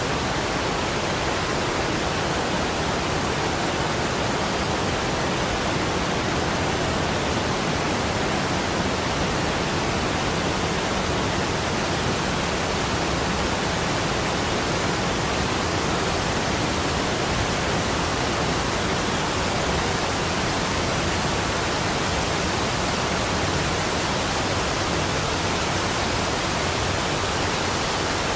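Waterfall rushing, an even, unchanging hiss that spreads evenly from low to high pitches.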